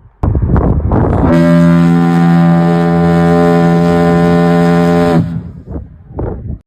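Souter Lighthouse foghorn sounding one long, steady, deep blast of about four seconds that stops abruptly, with a loud rush of noise just before it. Wind buffets the microphone near the end.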